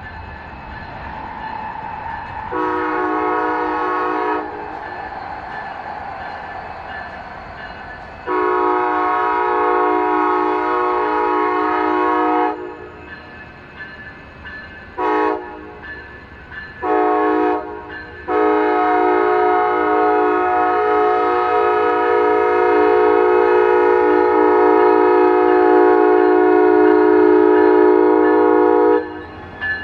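A passenger train's locomotive air horn sounds a chord in a grade-crossing warning pattern: two long blasts, two short ones, then a final long blast held for about ten seconds. Between the blasts the approaching train can be heard.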